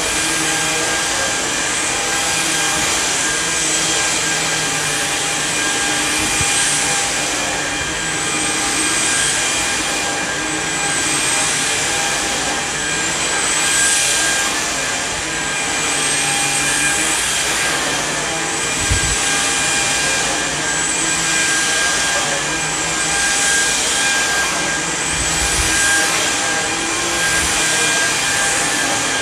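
Samsung Jet VS70 cordless stick vacuum running on carpet with its motorized brush roll, a steady motor whine under a hiss that swells and fades about every two seconds with the back-and-forth strokes.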